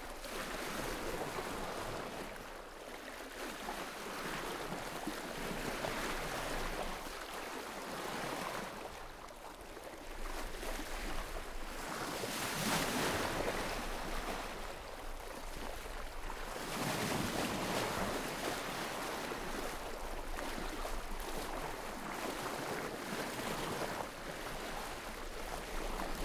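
Sea waves washing in and drawing back, a rushing surf that swells and fades every four or five seconds.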